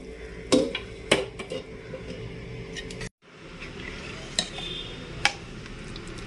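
A metal ladle stirring vermicelli and milk in a pressure cooker pot, with a few sharp clinks as it knocks against the pot's sides.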